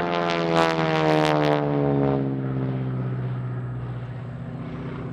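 North American T-6 Texan's Pratt & Whitney R-1340 radial engine and propeller passing overhead. The pitch drops steadily over the first three seconds as it goes by, then settles into a lower, steady drone that fades slightly.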